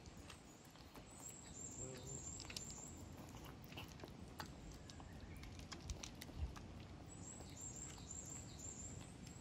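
A cat chewing crunchy dry cat food from a bowl, with scattered crisp crunching clicks. A small bird chirps in two short runs of thin, very high notes in the background.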